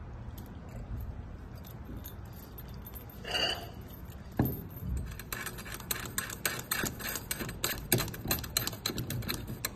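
Small metal lamp fittings jangling and clicking against the metal arm base as hands work on it, in quick, irregular taps from about halfway through. A short ringing note comes about three seconds in, with a knock just after.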